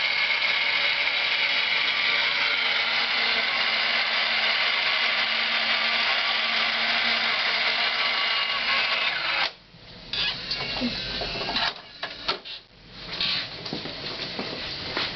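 CWS automatic toilet seat cover unit running its motor to turn a fresh plastic sleeve around the seat: a steady mechanical whirr with a high whine that cuts off about nine and a half seconds in. Scattered knocks and rustling follow.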